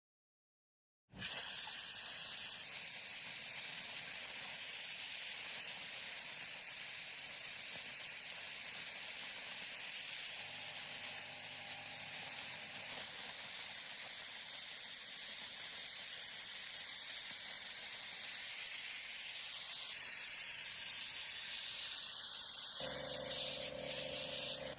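A steady, high hiss of spraying, starting about a second in after a moment of silence and running on evenly.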